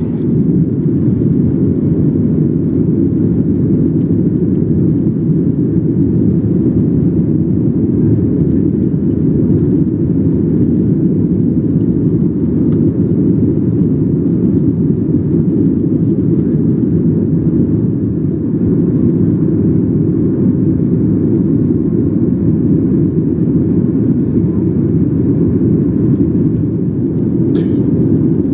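Steady low rumble of a Boeing 737 jet airliner heard from inside the passenger cabin, engine and airflow noise. It jumps up in loudness at the start and then holds nearly even.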